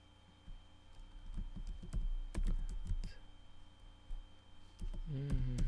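Computer keyboard typing: uneven runs of key clicks as text is entered.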